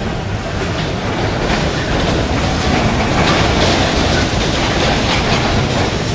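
Bumper cars running across the metal track floor: a steady rumble with a scatter of rattling clicks, growing a little louder over the first few seconds.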